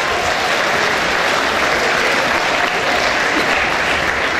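Audience applauding steadily, a dense even clapping that greets a performer called onto the stage.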